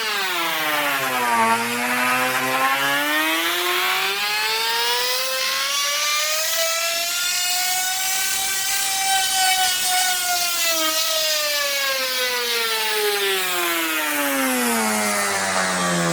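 Electric power tool motor whining on wood. Its pitch drops sharply at first, climbs slowly to a peak about halfway through, then sinks low again as the speed changes.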